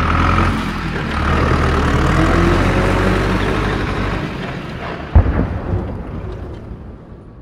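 A loud low rumble, then a sharp bang about five seconds in, after which the sound dies away.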